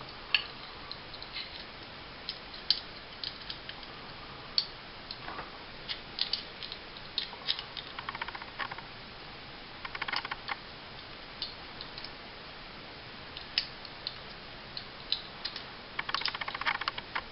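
Small metal parts of a compact 1911-style 9mm pistol being handled and fitted during reassembly: scattered light clicks and scrapes as the recoil spring guide and barrel go into the slide, with a few short runs of rapid clicking, the longest near the end.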